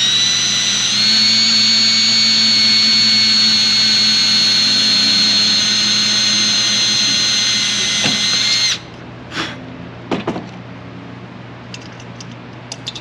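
Cordless drill running steadily with a high whine for about nine seconds as a 1/8-inch bit drills down through the fins of an LED light bar's housing, then cutting off. A few light clicks and knocks follow.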